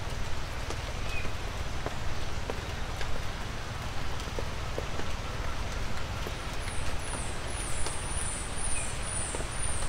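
Light rain falling in woodland: a steady hiss with irregular drops ticking, over a low rumble. From about seven seconds in, a very high, thin chirp repeats a couple of times a second.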